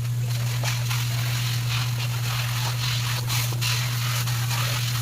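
A steady low electric hum with a spattering hiss over it, typical of water being sprayed while the window air conditioner is cleaned.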